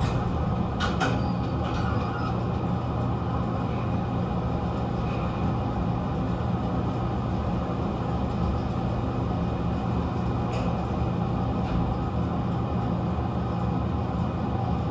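Elevator machinery humming steadily as the glass car travels, with a couple of light clicks about a second in.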